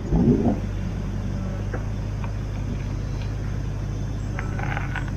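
A 4WD's engine running low and steady as the vehicle crawls over rocks, with a brief louder rumble right at the start.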